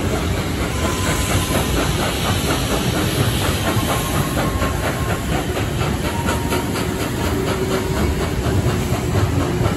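Steam train 5917 on the move, heard from a carriage window: a steady hiss of steam over the rumble of the carriages on the rails, with a faint quick rhythm of beats through the middle.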